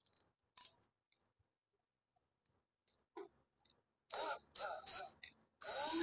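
Power drill with a screwdriver bit driving a screw into a microwave oven's sheet-metal chassis: a few faint clicks, then about four seconds in the motor whirs in three quick pulses, rising and falling in pitch each time, and near the end starts a longer run.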